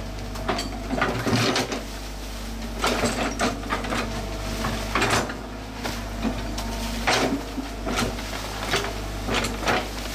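Komatsu PC120-6 tracked excavator working: the diesel engine runs at a steady hum while the bucket scrapes soil and brush, with irregular clanks and knocks from the bucket and arm linkage.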